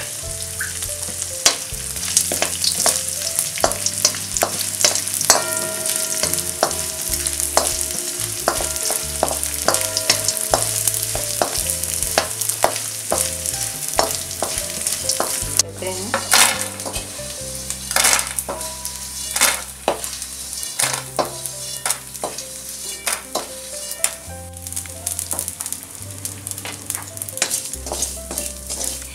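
Gond (edible gum) frying in hot ghee in an aluminium kadai, sizzling and crackling with many sharp pops as the pieces puff up, while a spatula stirs and scrapes the pan. From about halfway on the sizzle is lighter and the spatula's scraping strokes stand out more.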